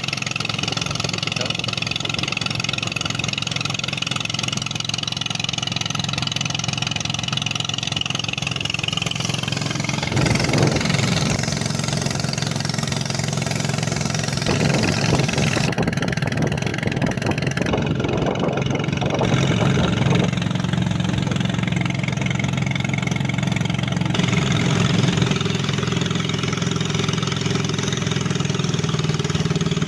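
A small boat's engine running steadily, its pitch shifting a few times as the throttle changes.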